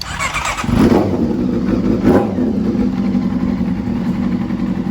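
Honda CBR400RR's inline-four engine cranked on the electric starter and catching a little under a second in, given one brief rev about two seconds in, then idling steadily.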